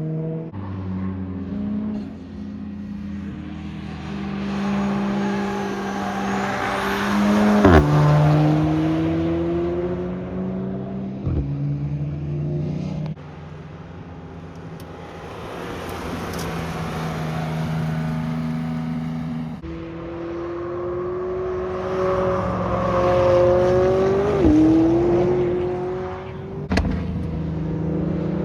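Sports cars driving on a race track, their engines accelerating and passing close by. Two pass-bys, about eight and twenty-four seconds in, each end in a sharp drop in pitch. The sound changes abruptly a few times between clips.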